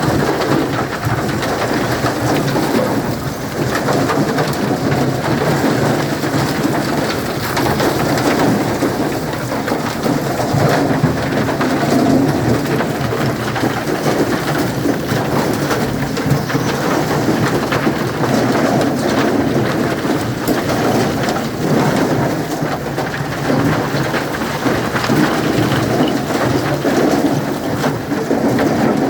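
Concrete mixer running, its drum churning with a steady, dense rattling rumble.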